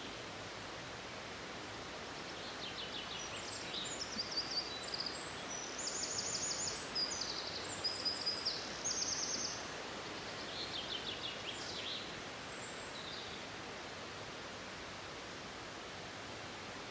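A small songbird sings a run of quick, high trills and chirps for about ten seconds over a steady rush of falling water.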